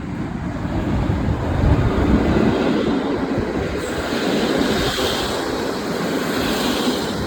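A passenger train going by close up: a steady rumble and rush of noise that builds over the first couple of seconds, with wind blowing on the microphone.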